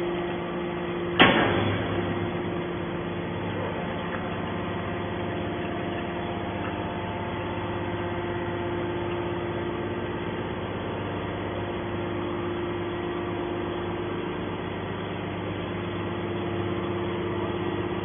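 TCM hydraulic scrap-metal baler running with a steady hum as its ram pushes a compressed bale out of the chamber. A single sharp bang sounds about a second in.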